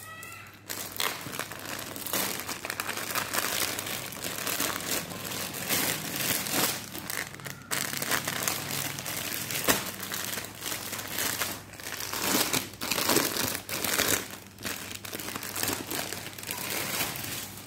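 Plastic packaging crinkling as it is handled: a white courier mailer bag and the clear plastic cover of a clothing set being pulled out and turned over. It is a continuous rustle with a couple of short pauses.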